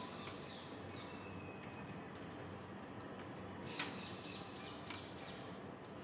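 Steady outdoor background noise with a few faint bird chirps, and one sharp click about four seconds in.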